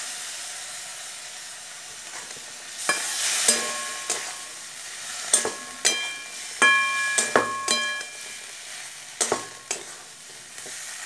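A metal spatula stirs boiled potatoes and peas in a hot, oiled metal kadai as ginger and green-chilli paste is mixed in, with the food sizzling. From about three seconds in, the spatula knocks and scrapes against the pan many times, and each knock leaves a short metallic ring.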